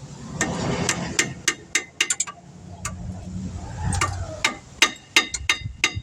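Metal tools and brake parts being handled. There are sharp clicks and clinks, coming closer together in the last two seconds, some with a short metallic ring, over low scraping and rustling.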